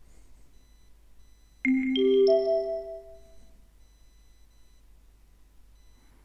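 Three-note rising signal chime from a recorded listening-exam audio track, marking the break before the next message. The notes strike in quick succession about a second and a half in and ring out for about a second and a half.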